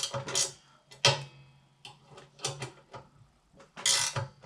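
Irregular sharp metallic clicks and knocks of hand tools and small metal parts being handled, a cluster of them near the end.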